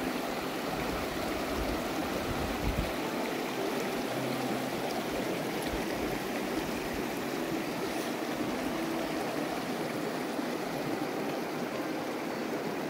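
Shallow mountain stream running over rocks and stones: a steady, even rush of water.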